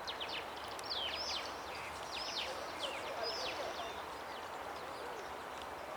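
Small birds chirping: many quick, high, falling calls in the first half, thinning out later, over a steady background hiss.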